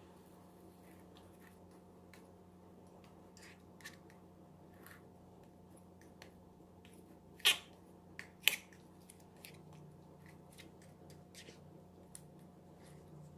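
Small metal spoon stirring and scraping melting paint against a nonstick frying pan: faint scrapes and light ticks, with two louder short, sharp sounds about a second apart midway through.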